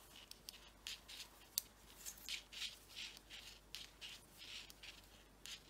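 Faint, irregular clicking of 7 mm knitting needles and soft rustling of yarn as knit stitches are worked, with one sharper click about a second and a half in.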